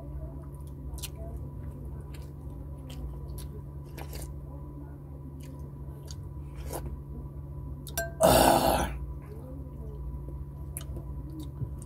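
Close-up mouth sounds of a person eating: chewing with small wet clicks. About eight seconds in there is one short, loud slurp of soup from a spoon.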